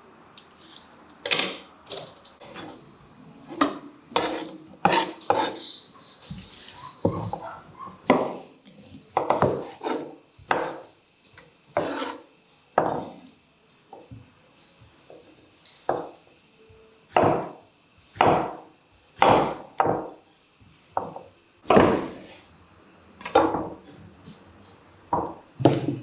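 Knife slicing vegetables on a wooden cutting board: separate cuts at an uneven pace, roughly one a second.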